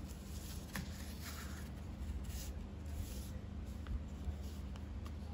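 Sheet of A4 paper rustling and rubbing as hands press and crease its folds on a tabletop, with a few faint clicks of the paper, over a steady low hum.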